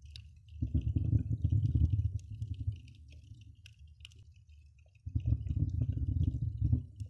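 Muffled underwater sound picked up by a submerged camera: two low surges of water noise, each about two seconds long and a couple of seconds apart, over a faint steady crackle of tiny clicks.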